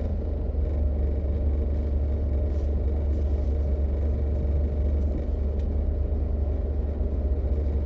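Car engine idling, heard from inside the cabin as a steady low rumble with a faint constant hum above it.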